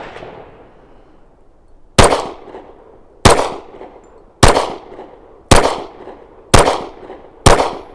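Glock 36 subcompact .45 ACP pistol fired six times at a steady pace of about one shot a second, each sharp report followed by a short ringing tail.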